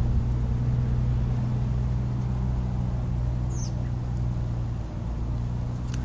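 A steady low hum runs throughout. A single short, falling bird chirp comes about three and a half seconds in.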